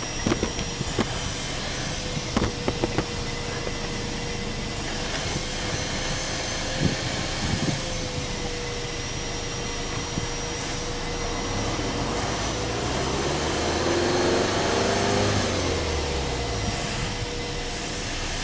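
Subaru Legacy B4 2.0GT's turbocharged EJ20 flat-four idling, heard at the twin exhaust tips. About twelve seconds in it is revved once, slowly: the pitch rises for about two seconds and falls back to idle over the next two.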